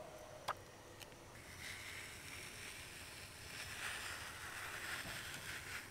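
Faint scraping of a metal ice cream scoop being drawn through frozen mango ice cream to roll it into a ball, with a single click about half a second in.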